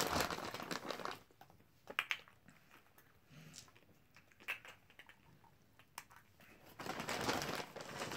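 Crinkling and rustling of a plastic candy bag as candy is handled into plastic Easter eggs. It comes in bursts: a longer one at the start, short ones around two and four and a half seconds in, and a longer stretch near the end.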